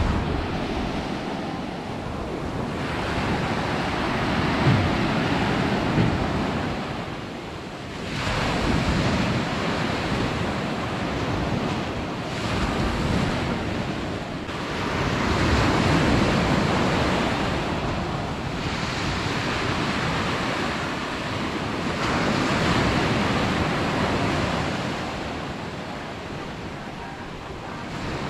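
Black Sea surf breaking and washing up the beach, swelling and easing every several seconds, with wind buffeting the microphone.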